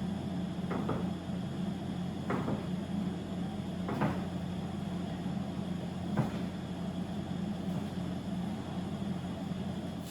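Kitchen knife cutting sausage into slices on a cutting board: about five separate knocks of the blade, a second or two apart, over a steady low hum.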